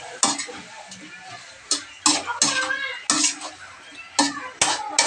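A metal spatula clanking and scraping against a steel wok while stir-frying chicken pieces, about eight sharp clanks spread unevenly, some ringing briefly.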